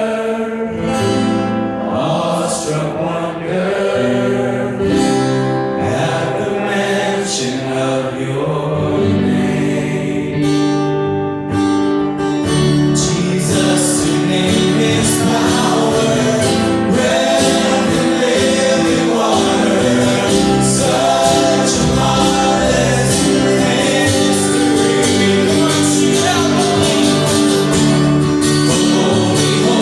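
Live gospel worship music: a group of singers with guitar and band accompaniment, the band filling out into a fuller, denser sound about twelve seconds in.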